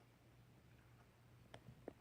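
Near silence: room tone with a faint steady low hum, and two soft clicks in the second half.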